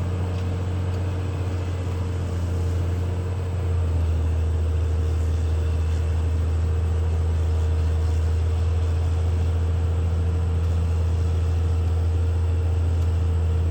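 Caterpillar D6R XL bulldozer's diesel engine running with a steady deep drone. About three and a half seconds in, the drone shifts and grows a little louder, then holds steady.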